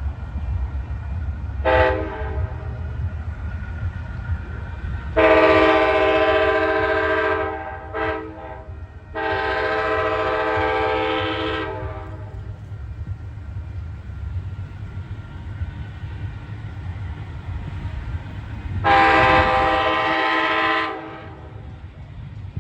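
A locomotive air horn sounding a chord in several blasts: a short toot about two seconds in, a long blast at about five seconds, a short one, another long one at about nine seconds, and a final long blast near the end. Under it, a train runs past with a steady low rumble.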